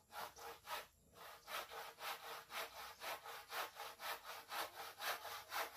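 Hand saw cutting through a wooden plank: quick, even back-and-forth strokes, about four a second, with a short pause about a second in.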